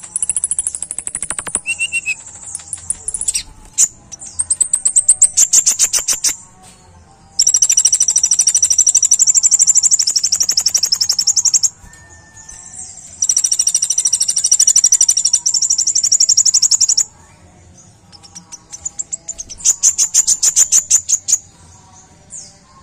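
Kolibri ninja sunbird singing a sharp, high-pitched song in bouts. Rapid trills of fast repeated notes alternate with two long stretches of dense twittering, with short pauses between.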